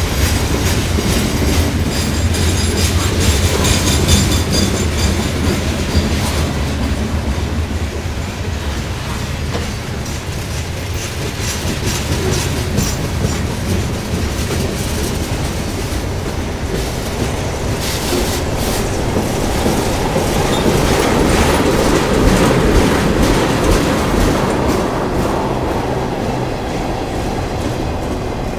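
Freight train cars rolling past at close range: a steady rumble of steel wheels on rail with rapid clacking over the rail joints.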